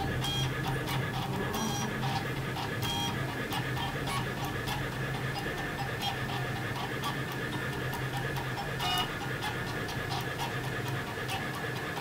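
Blackbox 3D printer working as a pen plotter: its motors and toolhead fan run with a steady low hum and a thin high whine, with irregular ticks and clicks as the marker head moves and writes.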